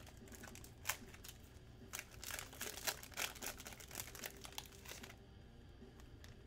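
Foil wrapper of a Panini Playbook football card pack being torn open and peeled back by hand. It gives a run of sharp crinkles and crackles for about five seconds, then quieter, sparser rustling.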